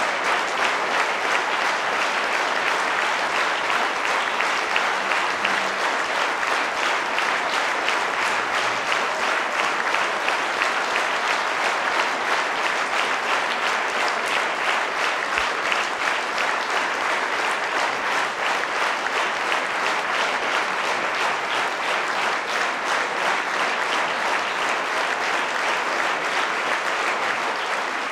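Large audience applauding, many hands clapping in a steady, sustained ovation.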